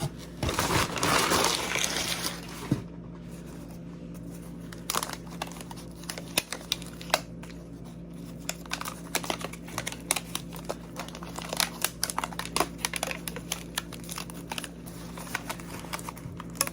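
Plant packaging crinkling and rustling as a potted plant is unwrapped by hand: a louder stretch of crumpling about half a second in, then scattered sharp crackles.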